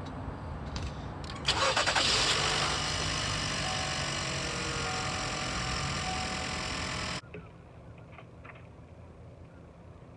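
Old Ford pickup engine cranking on the starter and catching, then running steadily. The sound cuts off abruptly about seven seconds in, leaving a quieter low rumble.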